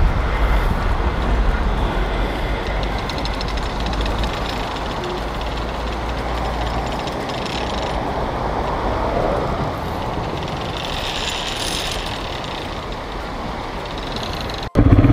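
Fast, swollen mountain river rushing steadily, an even roar of water. Near the end it cuts abruptly to a Royal Enfield Himalayan's single-cylinder engine running.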